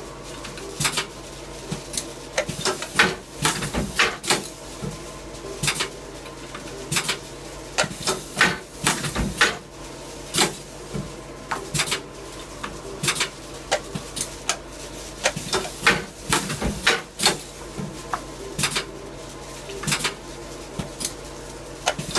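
Rilecart R500 calendar wire-binding machine being worked by hand: a string of sharp, irregular clacks and knocks as it cycles and as calendars are loaded and pulled out, over a steady hum.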